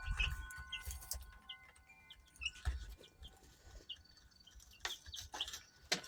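Chickens clucking and chirping in short scattered calls, with a few sharp clicks and faint steady ringing tones underneath.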